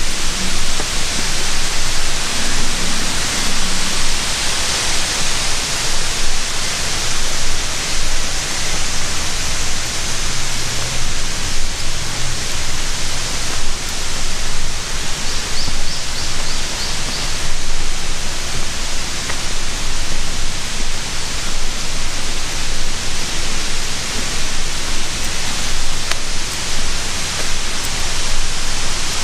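Steady, loud rush of water, like a waterfall or river rapids, with a few faint high chirps about halfway through.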